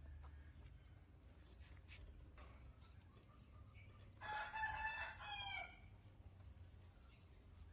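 A rooster crowing once, one call of about a second and a half starting about four seconds in.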